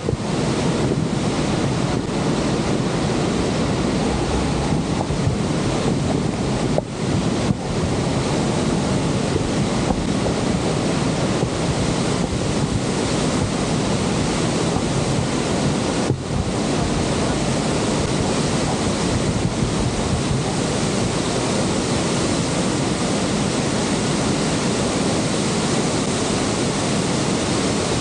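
Steady roar of the Horseshoe Falls, Niagara's water pouring over the brink, with wind buffeting the microphone.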